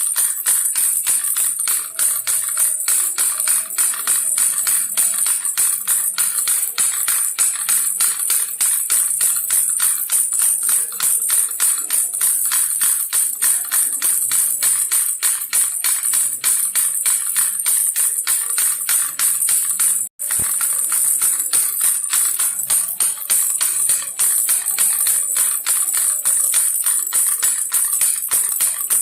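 Baby rattle shaken rapidly and evenly, a continuous jingling rattle that breaks off for an instant about twenty seconds in.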